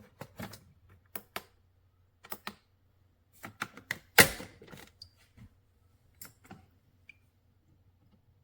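Plastic parts of a single-serve pod coffee maker clicking and clacking as they are handled, a string of irregular clicks with one loud clack about four seconds in.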